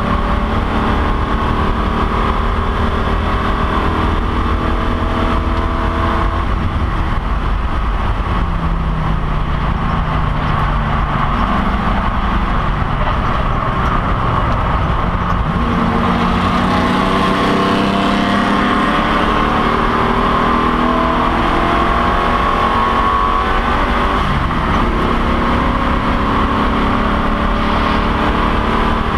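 Race car engine heard from inside the cockpit under hard acceleration, its revs climbing through each gear and dropping back at the upshifts a few times, over constant road and wind noise.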